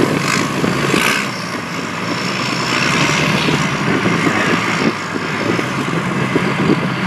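Engine of a lifted Chevy Suburban monster truck on tractor tires running steadily as it drives through standing water, with a hiss and splash of water churned up by the tires that swells a second or so in and again about three seconds in.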